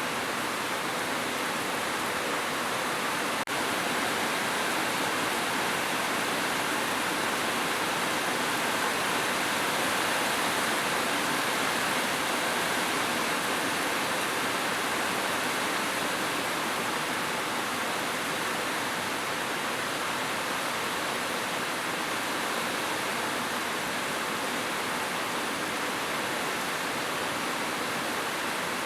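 Heavy rain falling steadily on a roof, a dense even hiss, with a brief dropout about three seconds in.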